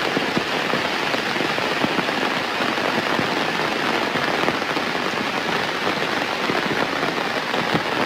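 Steady heavy rain falling and pattering on surfaces, a dense even hiss with many individual drop impacts.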